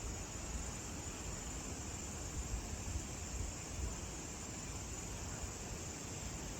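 Steady ambient background noise: a continuous high hiss over a low rumble, with a few brief soft gusts in the middle.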